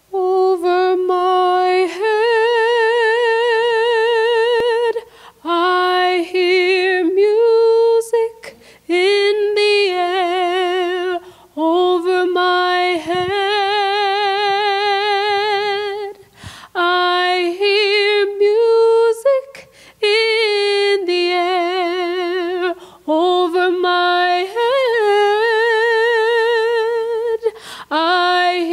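A woman singing solo and unaccompanied into a microphone: slow phrases of long held notes with a wide vibrato, broken by short breaths.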